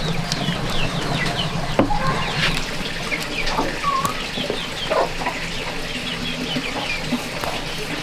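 Chickens in the background: many short, falling, high peeps with occasional lower clucks, plus a louder sharp sound about two seconds in.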